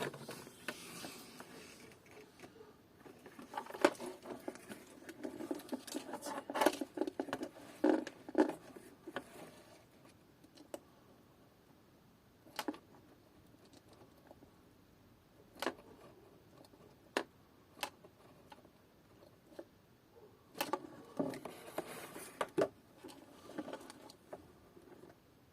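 Small hand tools and parts being handled on a workbench during a key fob repair: scattered sharp clicks and light taps, with busier bursts of tapping and rustling in the first third and again near the end.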